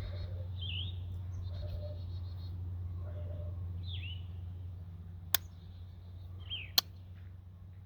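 Birds chirping: a few short down-slurred calls and rapid trills, over a steady low hum. Two sharp clicks come in the second half.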